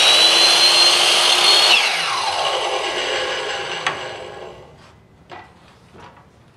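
Skil miter saw running at full speed with a steady high whine while crosscutting a wooden strip, then switched off about two seconds in, its motor and blade winding down with a falling whine over the next few seconds. A single click comes about four seconds in.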